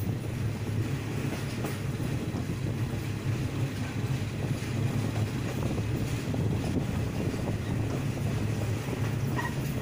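State Railway of Thailand passenger train running along the track, heard from one of its own coaches at an open window: a steady low rumble of wheels and carriages, with wind on the microphone.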